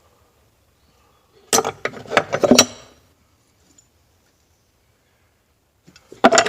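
Old metal hand tools clinking and clattering against each other as they are handled and set down, in a burst of about a second and a half, then another clatter near the end.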